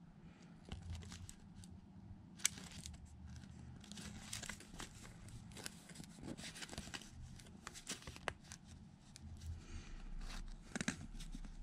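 Faint rustling and small clicks of hands handling the paper Plastigage envelope held against the bearing, with a sharper click about two and a half seconds in.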